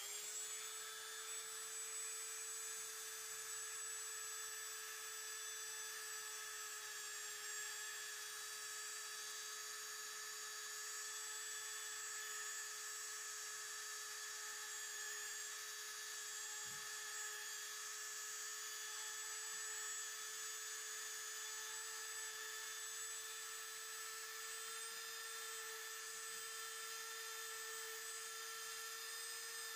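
Dremel rotary tool with a tiny bit running at a steady high speed, an even whine that holds its pitch, while drilling lacing holes through a cemented leather sandal strap and thong.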